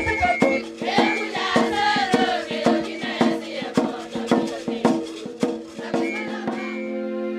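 A group of women singing a traditional song together to a steady beat on a hide-covered frame drum struck with a stick. Near the end the singing and drumming stop, leaving soft, steady background music.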